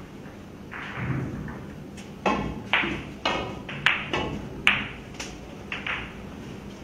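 Pool cue striking the cue ball, followed by a run of sharp clacks and knocks, about eight over four seconds, as billiard balls collide and rebound off the cushions.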